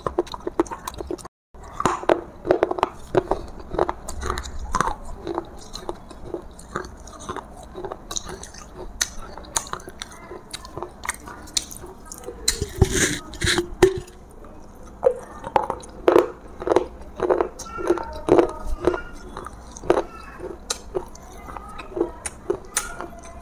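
A person biting and chewing pieces of a water-soaked clay matka pot close to the microphone: a quick run of crisp crunches, with a louder, longer crunch about halfway through.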